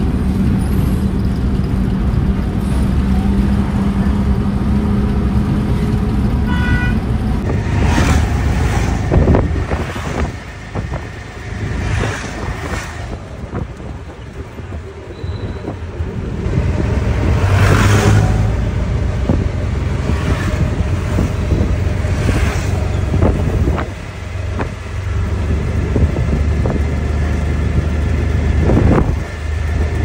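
Cabin noise of a moving car: a steady engine and road hum. After a cut about 7.5 s in, the sound of a ride along a street, with other vehicles swishing past several times.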